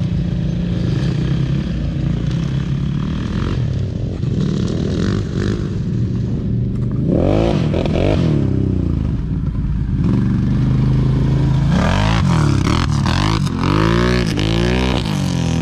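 Off-road quad and dirt bike engines running and being revved up and down, with quick rises and falls in pitch about seven seconds in and again from about twelve to fifteen seconds in.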